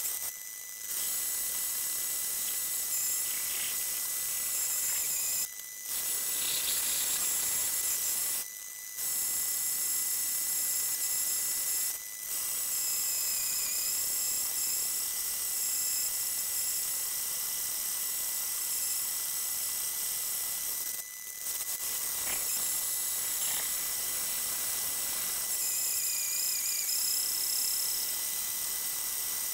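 Vertical bandsaw cutting a thick aluminium plate: a steady high-pitched hiss and whine from the blade, with a few short breaks.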